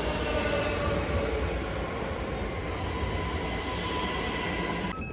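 ÖBB passenger train rolling alongside the platform as it pulls in, with a steady rumble of wheels on rail and faint high squealing tones from the wheels and brakes.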